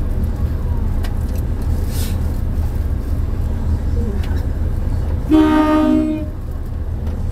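Pingxi Line diesel railcar running with a steady low rumble, heard from the front cab. About five seconds in it sounds its horn once, a short toot of under a second, a warning to the people standing beside the track.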